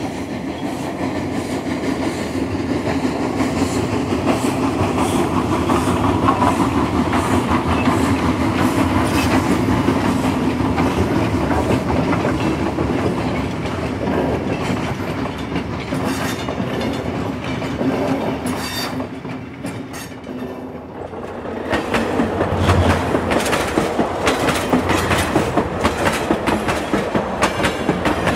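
A train running on track, its wheels clicking over the rail joints. The sound dips about twenty seconds in, then comes back with a clearer, regular clicking rhythm.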